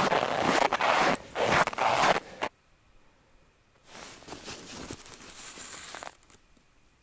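Footsteps crunching through deep snow, cutting off suddenly about two and a half seconds in; faint rustling follows.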